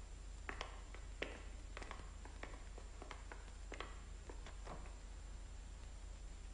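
Scattered light taps and clicks on a hard surface, irregular, about two or three a second, over a steady low mains hum.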